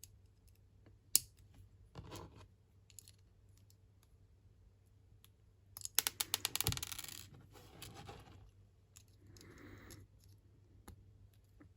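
Small plastic LEGO pieces clicking and rattling as they are handled, with a quick run of clicks about six seconds in and a soft rustle near ten seconds.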